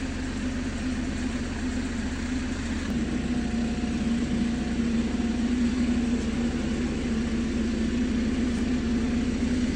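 A steady low mechanical drone, like an engine idling, with a constant hum; its low end shifts slightly about three seconds in.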